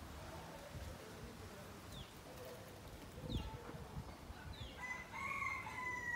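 A rooster crowing once, starting about five seconds in and held for over a second. Before it comes a dull thump, with a few short high chirps of small birds.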